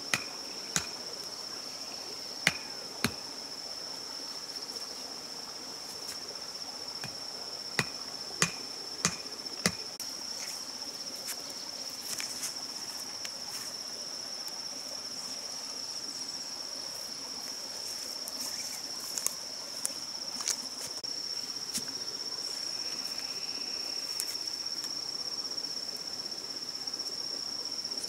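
A stone knocking a wooden stake into the ground: scattered sharp knocks in small clusters, over a steady high-pitched drone of forest insects.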